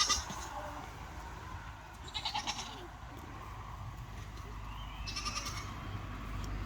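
Goats bleating: three short, wavering bleats about two and a half seconds apart.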